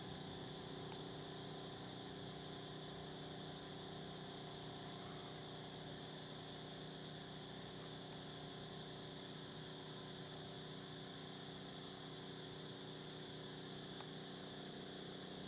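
Steady, unchanging hum made of several held low tones, like a distant idling engine, with an even high-pitched drone over it.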